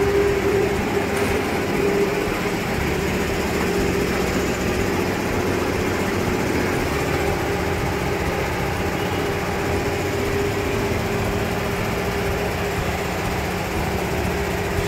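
Steady mechanical hum: an even drone carrying two low held tones over a noisy background, with no change in level.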